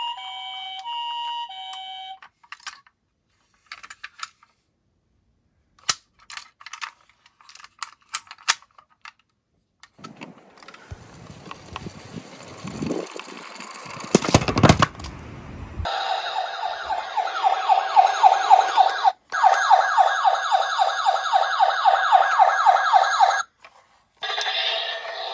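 A two-tone hi-lo siren for the first couple of seconds, then scattered light plastic clicks. A minicar then rolls down a slope with a rising rumble that peaks about fourteen seconds in. A fast-warbling electronic siren follows for about seven seconds, with a brief dropout midway.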